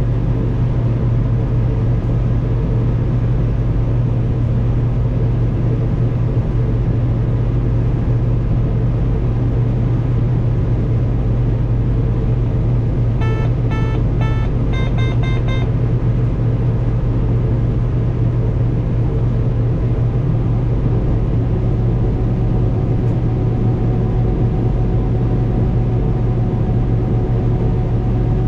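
Combine harvester running steadily through corn, a constant loud low hum, with a quick string of short electronic beeps a little before the middle.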